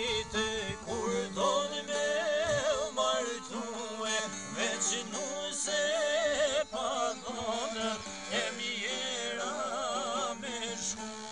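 Albanian folk song played on two long-necked lutes, plucked over a steady drone, with a male voice singing a wavering, ornamented melody.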